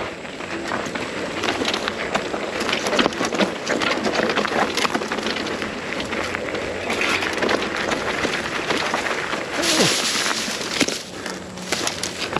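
Mountain bike descending a rocky dirt trail: knobby tyres crunching over rock and loose dirt while the bike rattles and clatters over the bumps in a constant run of knocks. About ten seconds in there is a brief louder rush of noise.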